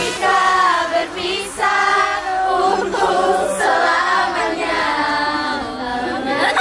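A group of teenage girls singing together in chorus, holding and sliding notes with no backing beat, ending in a rising shout.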